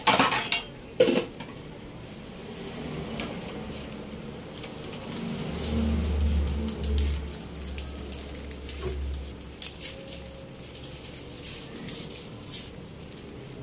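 Pork simmering in water in a wok, with scattered small pops and crackles. Two sharp knocks come right at the start, about a second apart, and a low rumble swells for a few seconds in the middle.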